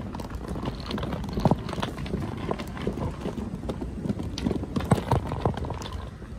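Wheeled suitcase rolling over stone paving, its wheels rumbling steadily and clacking irregularly over the joints between the slabs.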